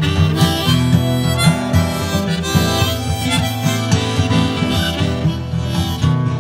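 Harmonica playing a melody over steady acoustic guitar strumming, in an instrumental passage of a folk song.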